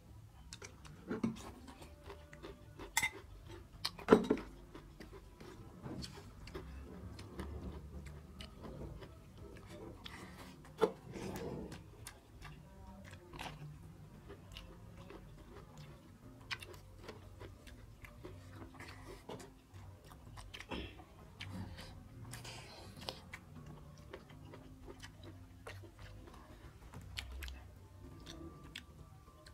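Close-miked eating sounds: chewing and mouth sounds of people eating rice and mutton curry, with many short, sharp clicks scattered throughout and a few louder ones in the first dozen seconds.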